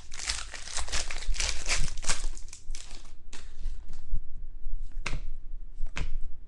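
A trading card pack wrapper being torn open and crinkled, dense crackling for about three seconds, then a few separate short rustles.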